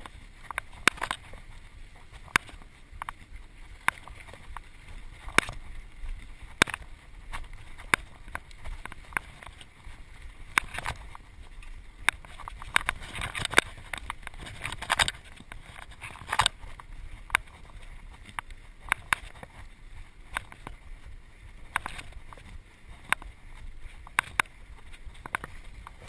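Mountain bike rolling fast down a dirt singletrack: a steady low rumble of the tyres on the trail, with frequent sharp clicks and knocks at irregular intervals as the bike rattles over bumps and roots.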